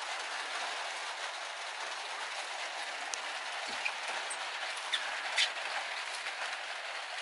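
Steady rain falling on the sheet-metal roof and body of a 2017 Ram ProMaster high-top van, heard from inside, with a few sharper ticks of single drops now and then.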